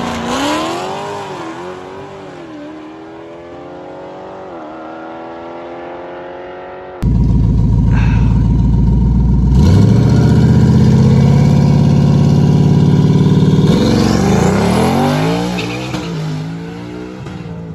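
A Dodge Charger accelerating hard down a drag strip, its engine pitch climbing and dropping back at each gear change as it fades away. Then a Ford Mustang GT's 5.0 L V8 is heard loud at the start line, launches about ten seconds in, and revs up through its gears as it pulls away and fades.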